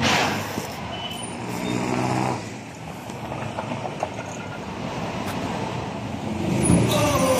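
Street traffic noise: a brief hiss at the start, then a motor vehicle engine running for about a second, over a steady traffic rumble that grows toward the end.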